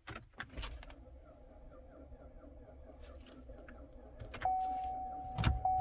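Cadillac XTS power door locks clicking near the start, then a steady electronic warning tone from the car that comes on near the end, broken once.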